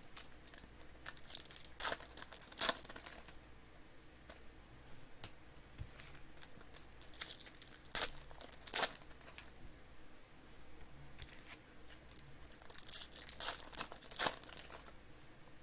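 Foil trading-card pack wrappers being torn and crinkled by hand, in three bouts of crackling about six seconds apart.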